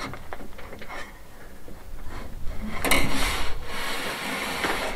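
A large solar panel being slid out of a car's boot by hand, its frame scraping and rubbing against the load floor, loudest about three seconds in.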